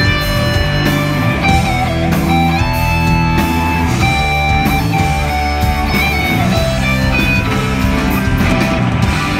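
Live rock band playing: distorted electric guitars, bass and drums, with a lead guitar holding long notes that step from pitch to pitch over the band.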